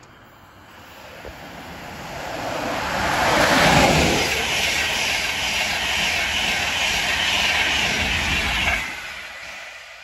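LNER Class 91 electric locomotive 91105 and its Mk4 coaches running through the station at speed: a rush of wheels on rail that swells to its loudest about four seconds in, holds steady with a light regular clatter as the coaches pass, then drops off quickly near the end as the train goes by.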